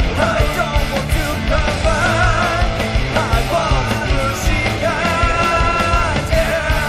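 Rock song with a driving drum beat and a sung lead vocal.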